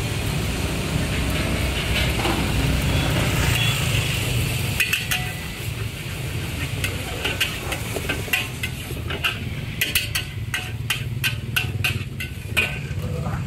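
A metal wok spatula scraping and clanking in a charcoal-fired wok as noodles are stir-fried. A quick run of sharp strikes starts about five seconds in and is densest near the end, over a steady low rumble.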